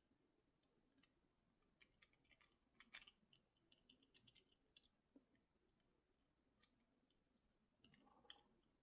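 Faint, irregular clicks of a Master Lock 878 four-wheel combination padlock's number wheel being turned position by position while the lock is decoded by feel.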